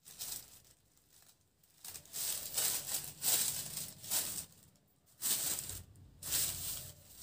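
Rustling and swishing of a sheer chiffon saree as it is shaken out and spread by hand, in several spells with short quiet gaps between.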